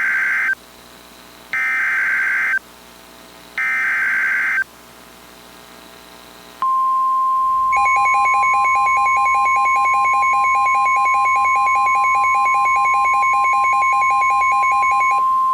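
NOAA Weather Radio alert signal. Three harsh, screechy SAME data bursts of about a second each come first; after a short pause, the steady 1050 Hz warning alarm tone begins and holds. About a second after the alarm tone starts, a rapid beeping joins it.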